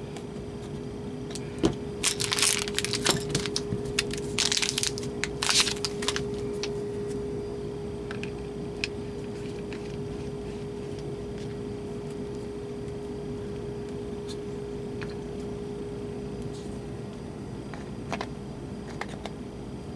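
Plastic packaging crinkling in a few bursts over several seconds as a new handheld radio and its accessories are unwrapped, followed by a few light clicks of handling, with a faint steady hum underneath that stops near the end.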